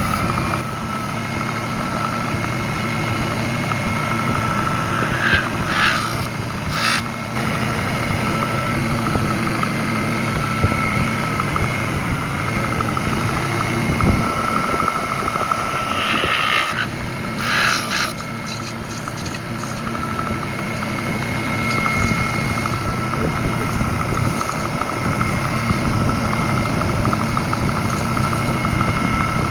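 A motor-driven machine running steadily with a constant whine, with two short louder bursts, about a fifth of the way in and again past the middle.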